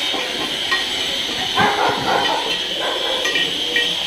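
A dog barks briefly about one and a half seconds in, over a steady background hiss.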